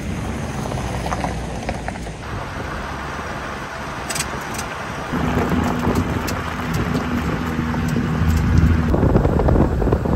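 Toyota Land Cruiser HZJ75's 4.2-litre six-cylinder diesel driving along a gravel mountain track, engine and tyre noise mixed with wind on the microphone. A steady engine drone comes up about halfway through.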